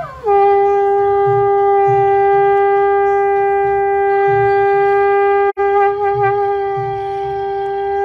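Conch shell (shankh) blown as a ritual horn, dropping quickly in pitch at the start into one long steady note, with a momentary break about five and a half seconds in.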